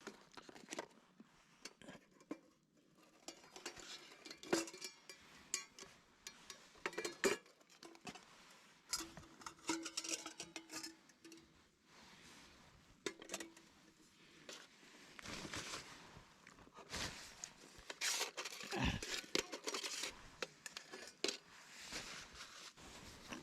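Irregular clinks, knocks and rustling of objects being handled, in the manner of dishes and cookware, with a few short ringing clinks.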